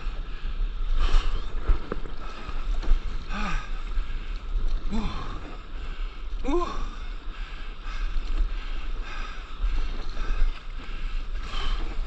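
Sea water sloshing and splashing against a camera held at the surface, with a steady low rumble of water and wind on the microphone. A few short vocal cries that glide in pitch break through, about three and a half, five and six and a half seconds in.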